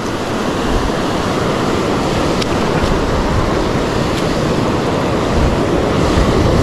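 Surf breaking and washing over a rocky reef, with wind rumbling on the microphone.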